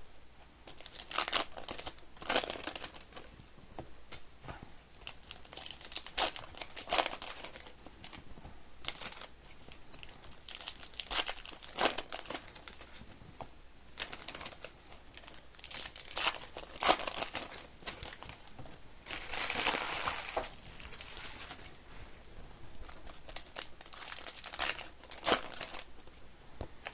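Foil trading-card pack wrappers crinkling and tearing as packs are ripped open and handled, in irregular bursts with one longer stretch of tearing about twenty seconds in.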